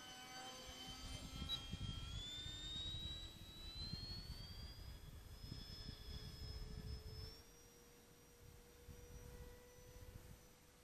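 Whine of a radio-controlled F-5 jet model's FMS 70 mm 12-blade electric ducted fan in flight. Its pitch climbs over a few seconds, then steps up and holds steady. A low rushing noise runs under it and falls away about seven seconds in.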